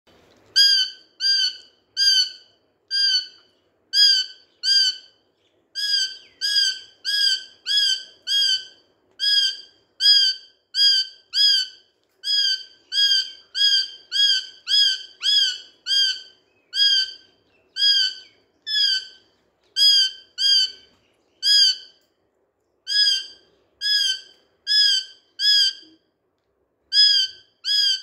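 Pet Psittacula parakeet giving a long run of short, identical squawking calls, about two a second, with a few brief pauses.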